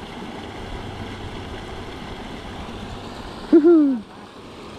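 A man's short vocal exclamation, an 'ooh' that jumps up in pitch and then falls, about three and a half seconds in, over a steady background hiss.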